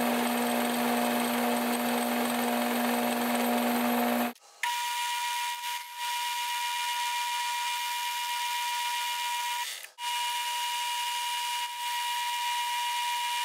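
Metal lathe running, turning down a bolt shaft, with a steady machine whine. The sound breaks off briefly about four seconds in and again near ten seconds. After the first break the whine is higher-pitched.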